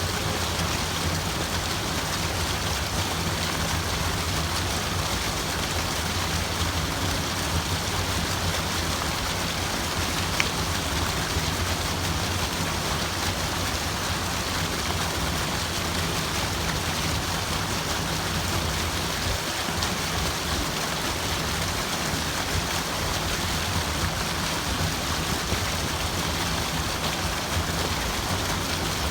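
Steady rushing water, an even hiss with no pauses, with one faint click about ten seconds in.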